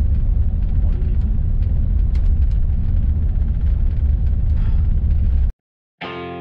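Steady low rumble of engine and road noise inside the cabin of a moving double-decker coach, with faint light rattles. It cuts off suddenly about five and a half seconds in, and guitar music starts just before the end.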